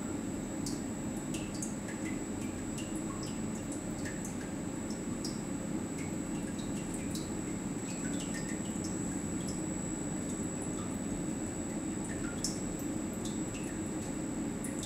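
Watson-Marlow peristaltic chlorine pump running through a flow calibration, with chlorine solution dripping into the graduated calibration column. Irregular short drips, several a second, sound over a steady low hum and a faint steady high whine.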